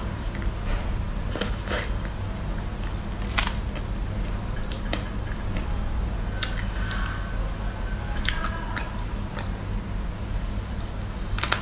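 Close-up mouth sounds of eating an ice cream bar: scattered bites and wet mouth clicks, heard as sharp separate ticks. Under them runs a steady low hum.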